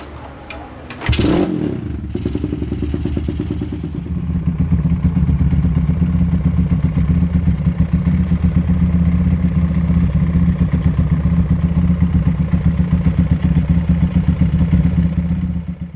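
Suzuki Satria FU motorcycle's single-cylinder engine starting about a second in, then running steadily, louder from about four seconds in. It is the engine whose rough, noisy running ("kasar", ticking) the owner sets out to trace.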